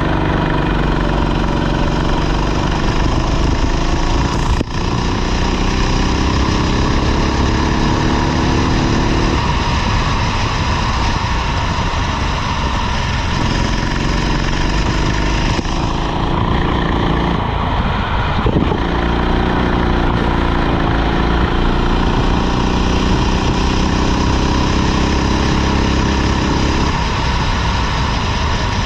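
Rental kart engine running under racing load, its pitch climbing and falling again and again as it accelerates and lets off, over a steady rush of noise.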